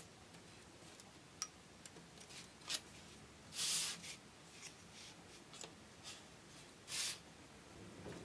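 Paper craft handling on a cutting mat: light clicks and scratches of a craft knife and paper, with two brief, louder rustles of stiff paper about three and a half and seven seconds in.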